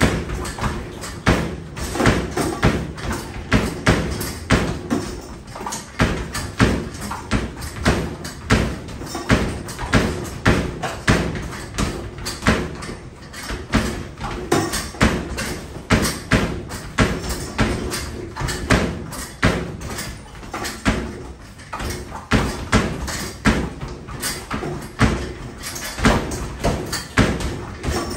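Basketballs being shot rapidly at an arcade basketball machine with a nylon net: a steady run of thuds and bounces off the backboard and rim, about two a second, as the balls drop back down the return ramp.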